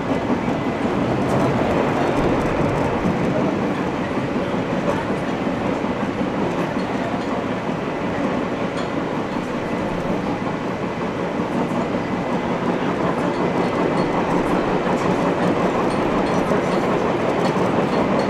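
Running noise inside a Nagoya Municipal Subway 3050-series car between stations: a steady rumble of steel wheels on rail with scattered clicks. It carries the knock of flat spots on the wheels.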